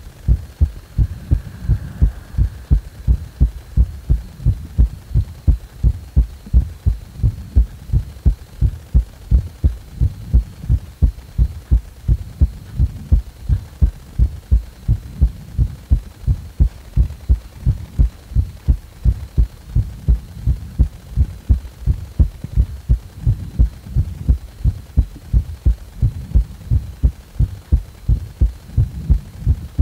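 A person's heartbeat, a recorded heart sound: a regular run of low, dull thumps at an even pace.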